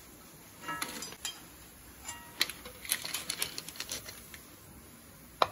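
Crisp fried sevu sticks clattering against an aluminium bowl as they are handled: a few light clicks about a second in, then a quick run of sharp clicks, and one louder knock near the end.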